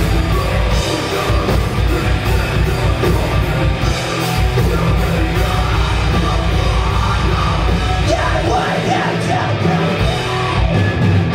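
Death metal band playing live: heavily distorted guitars and bass over fast double-bass drumming, with harsh yelled vocals.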